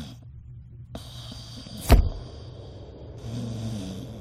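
Designed sci-fi sound effects for an alien spacecraft's light beam: a low rumbling hum with a steady high tone over it, and one sudden loud hit about two seconds in. A low falling hum comes back near the end.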